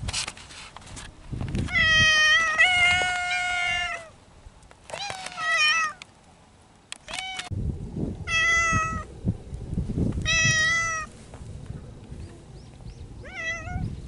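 Cat meowing five times during spring courtship, the first call drawn out for about two seconds and the rest shorter.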